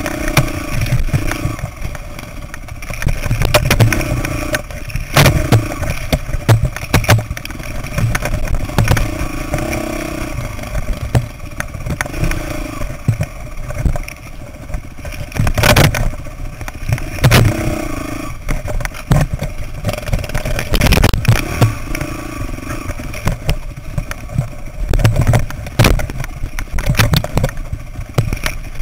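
Dirt bike engine revving up and down over and over as it is ridden along a rough rocky trail. Sharp knocks and clatter from the bike over the bumps come through several times; the loudest are about 16 and 21 seconds in.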